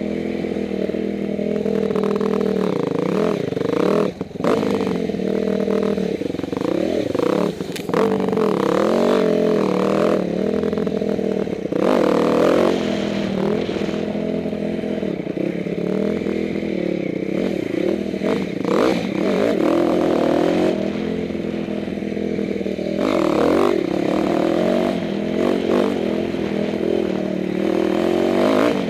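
Dirt bike engine running under load, its revs rising and falling with the throttle, with two brief drops about four and seven and a half seconds in. Knocks and rattles come through as the bike rides over the rough trail.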